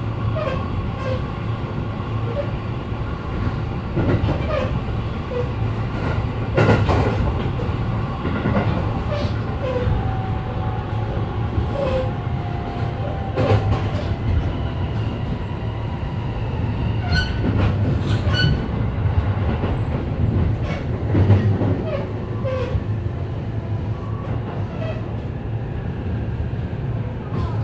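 Running noise heard inside a JR East E531 series electric commuter train car: a steady rumble from wheels and motors, with faint tones and the irregular clack of wheels passing over rail joints.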